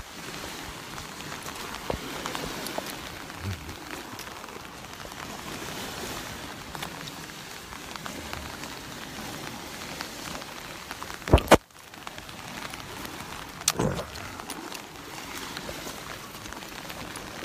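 Steady hiss of rain falling, with small waves washing onto a sandy shore. A sharp double knock comes a little past the middle, and another knock shortly after.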